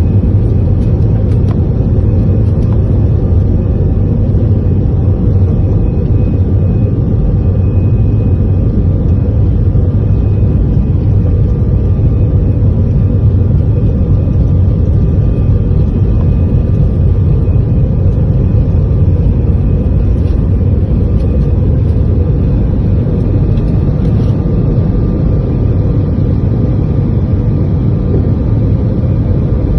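Airliner cabin noise: a steady low rumble from the jet engines and airframe, with a few faint steady whines above it.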